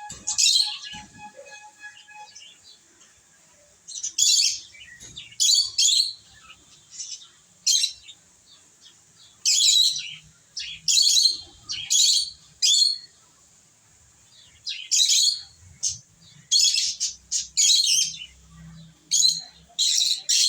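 Pet lovebirds chirping in short, high-pitched bursts, about fifteen clusters with short pauses between them.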